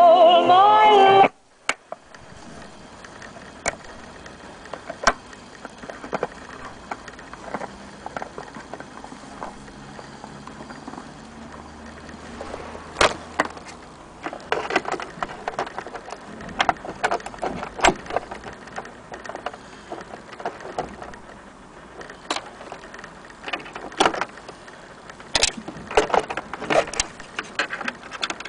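Song playing from a record through the Philips Disc Jockey Junior record player cuts off abruptly about a second in. It is followed by irregular sharp clicks and knocks as the tonearm wiring and its plug are handled, most of them in the second half.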